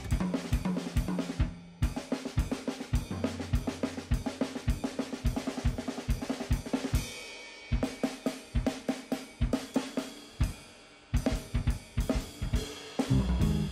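Drum kit played alone in a jazz drum solo: a busy run of snare, tom and bass-drum hits under ride and crash cymbals. About halfway through there is a short stretch of mostly cymbal wash, and the hits thin out briefly near the end.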